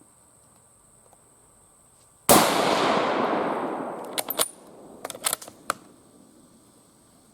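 A single rifle shot from a 7.65×53mm Argentine 1909 Mauser, with a long rolling echo dying away over about two seconds. It is followed by two quick runs of sharp metallic clicks as the bolt is worked to chamber the next round.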